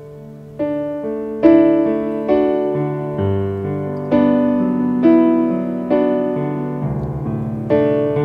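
Piano playing a slow introduction to a hymn: sustained chords struck about once a second, each one ringing and fading.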